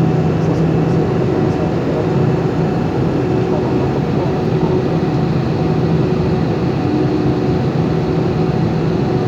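Airliner cabin noise in flight: a steady loud rush of jet engines and airflow with a constant low hum.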